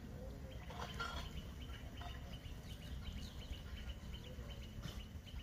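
Outdoor ambience: a high, rapid chirping trill from a small wild creature starts about half a second in and stops near the end, over a low steady rumble.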